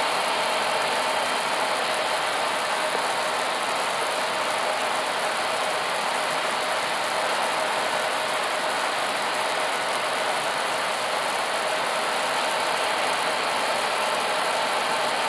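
Steady rushing flight-deck noise of an Airbus A320 on final approach with the gear down: airflow over the cockpit and engine noise, with a faint steady hum in it.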